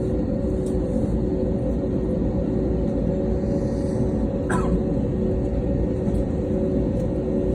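Steady low rumble of an airliner cabin on the ground just after landing, with a constant engine and air-system hum underneath.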